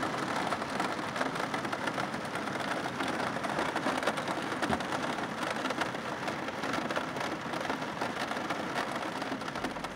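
Heavy rain drumming on a camper van's metal roof, heard from inside the cabin: a dense, steady patter of countless drops that eases slightly near the end.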